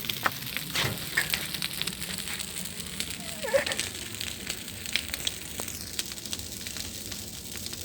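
A large, tall-flamed brush-pile bonfire (coivara) burning, with dense, rapid crackling and popping over a steady hiss of flames.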